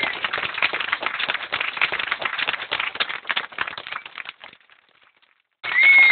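Rapid clicking and rattling of budgerigars moving about their wire cage. The sound drops out for about a second, then resumes near the end with a single short, falling budgerigar chirp.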